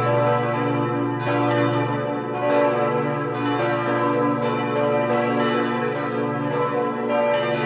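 Four bronze church bells cast in 1949 by Petit & Edelbrock ring together as a partial peal on the notes B, D, F-sharp and A (h° d' fis' a'), with fresh strokes overlapping continuously. The fifth bell, e', is silent because it had no clapper.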